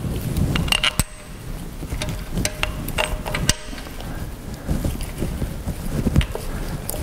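Metal-on-metal clicks and taps of a spin-on oil filter adaptor plate and its centre bolt being handled and fitted against the engine's filter housing, a few sharp knocks, the clearest about a second in and about three and a half seconds in, over a low rumble.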